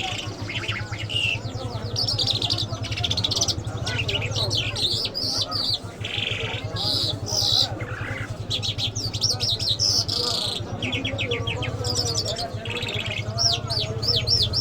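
Lark (jal) singing a long, varied song of rapid chirps, fast trills and arched whistled notes, over a steady low hum.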